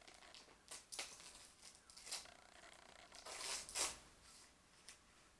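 Paper wrapping being torn and crinkled as a small gift is unwrapped by hand: a few faint, short rips and rustles with pauses between them.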